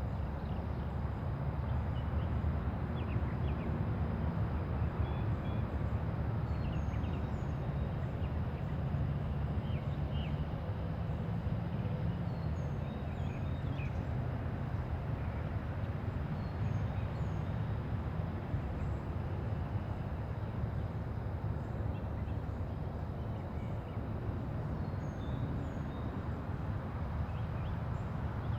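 Quiet residential neighborhood ambience: a steady low hum of distant traffic, with faint, scattered bird chirps over it.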